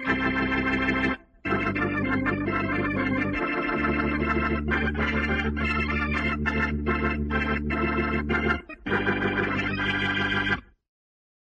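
Short keyboard music jingle used as a radio transition effect: sustained organ-like chords with a run of short stabs about twice a second in the middle, brief breaks a little over a second in and near the end, then it cuts off about a second before the end.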